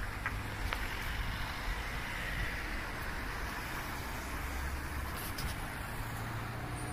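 Road traffic: cars driving past on the street, a steady rumble of engines and tyres.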